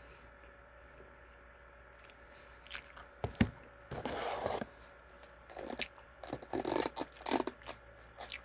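Food packaging being handled: quiet at first, then a sharp click, a short crinkling burst, and a run of scrapes and rustles.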